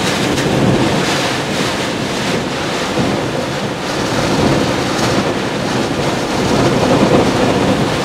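Tropical storm winds gusting to hurricane force, with wind-driven rain: a loud, continuous rush that swells and eases, with wind buffeting the microphone.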